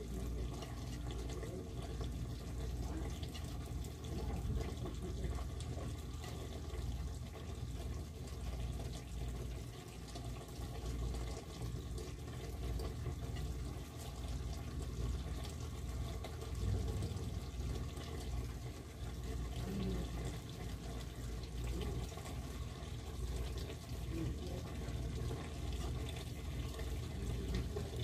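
Steady rushing noise of a pot of potatoes and cauliflower (aloo gobi) cooking on a gas stove, with a low rumble throughout.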